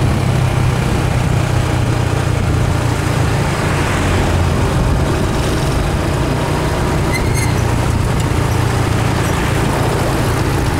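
Motorcycle engine running at a steady cruise, heard from on the bike, over a constant rush of wind and road noise.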